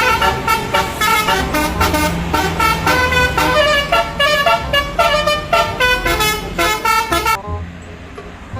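Multi-tone telolet bus horn playing a quick melody of short notes, which stops about seven and a half seconds in.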